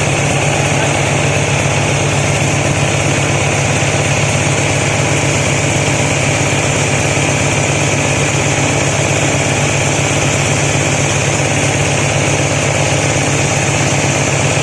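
Corn-cob grinding mill running steadily at constant speed: an even mechanical drone with a steady high hiss over it.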